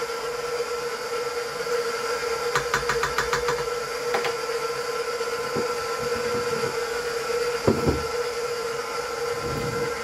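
Electric stand mixer running at a steady speed with a constant motor whine while it beats cake batter in its steel bowl. A quick run of light clicks comes about two and a half seconds in, then a few knocks, the loudest near the eighth second.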